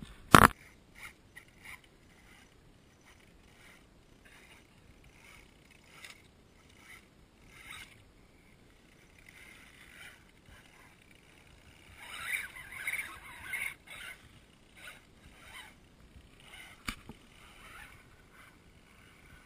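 Axial Wraith RC rock crawler splashing through a muddy puddle, its small electric motor and gears whining in short spurts; the splashing is loudest about twelve to fourteen seconds in. A sharp click about half a second in is the loudest sound.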